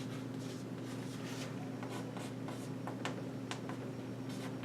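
Writing on a board: a run of short scratching and tapping strokes as the equation is written out, over a steady low electrical hum.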